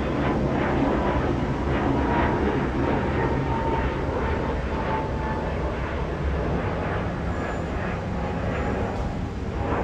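Airbus A320neo (A320-251N) jet passing overhead, its CFM LEAP-1A turbofans making a steady loud rumble with a faint tone that slides slowly down in pitch as the aircraft moves away. The noise eases slightly near the end.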